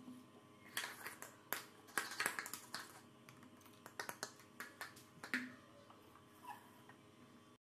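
A rapid, uneven run of sharp clicks and taps as a plastic mortar and pestle knock against a small steel mug while crushed garlic is tipped into lemon water. The taps die away after about five and a half seconds.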